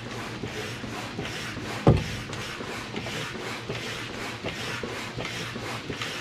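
Hand stirrup pump inflating an inflatable stand-up paddle board: a rhythmic hiss of air, stroke after stroke, as the board fills toward its 12–15 PSI target. A single thump about two seconds in.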